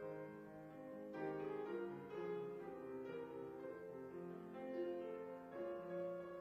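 Slow hymn music played on a keyboard instrument, held chords changing about once a second.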